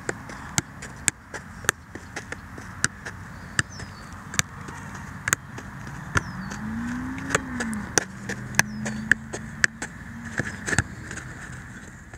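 A soccer ball being juggled: a steady run of sharp touches on the ball, about one or two a second. About halfway through, a low drawn-out sound rises and falls, then holds for a couple of seconds.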